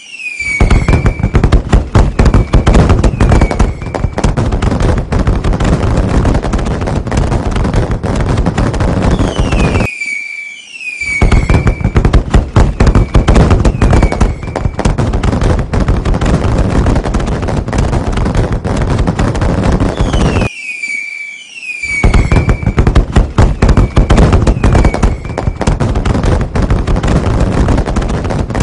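Fireworks sound effect: a few falling whistles, then a dense barrage of bangs and crackling. The same stretch repeats about every ten seconds, each time after a brief drop-out.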